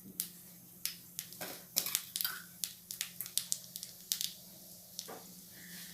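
Mustard seeds crackling and popping in hot ghee in a kadai, in irregular sharp pops scattered throughout.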